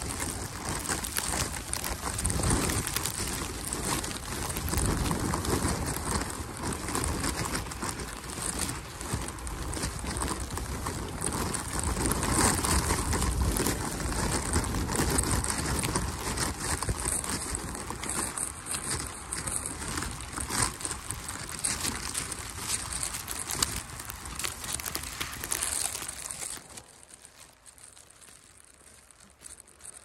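Footsteps crunching through fresh snow, an irregular steady crackle and crunch with a low rumble of wind on the microphone. The crunching stops and it goes much quieter about four seconds before the end.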